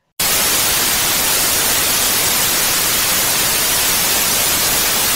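Loud television static, a steady white-noise hiss used as a glitch transition effect, starting abruptly after a split second of dead silence.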